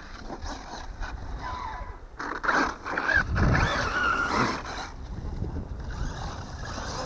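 Arrma Mojave 8S RC truck with a Hobbywing 5687 brushless motor on a run. Its motor whine and tyre noise swell about two seconds in, shifting in pitch for a couple of seconds, and are fainter before and after.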